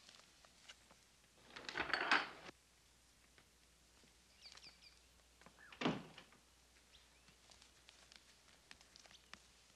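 Wooden cabin door with a slide bolt: a rattle about two seconds in as it is unbolted and opened, then a single thump as it shuts about six seconds in.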